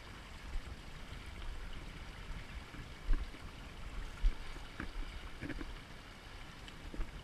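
River water moving and lapping around a small inflatable raft, with wind rumbling on the microphone. Two sharp low thumps come about three and four seconds in.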